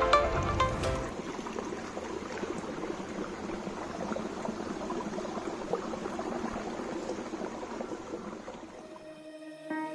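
Stream water running and babbling over rocks, a steady rushing with fine trickling detail.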